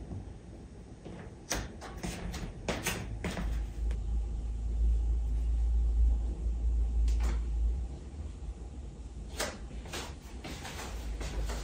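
Scattered light clicks and knocks of household handling, with a low rumble for a few seconds in the middle. The clicks later on are clothes hangers knocking on an indoor drying rack as laundry is hung up.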